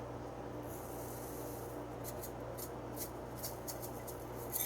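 Salt being shaken from a container into a mixing bowl: a few quick, faint shakes in the middle, then a louder rustle near the end, over a steady low hum.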